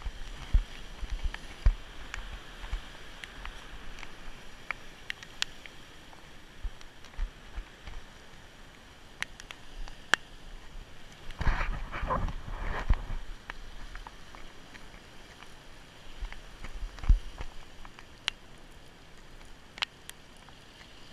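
Sea surf washing against shoreline rocks, with wind rumbling on the microphone and scattered clicks from a spinning reel and rod being handled; a louder rush comes about twelve seconds in.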